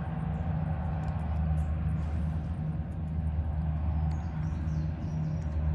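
Steady low diesel engine drone of a towboat pushing a barge on the river, with a slow, even throb.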